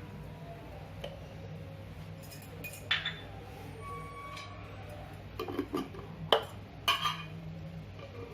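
A few sharp clinks and knocks of a glass pickle jar being handled, one about three seconds in and a cluster a little past halfway, over a low steady hum.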